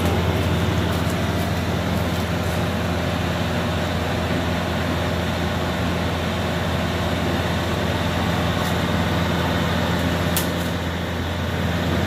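Yanmar AW82V combine harvester's diesel engine running steadily as the tracked machine drives slowly along, a constant low drone.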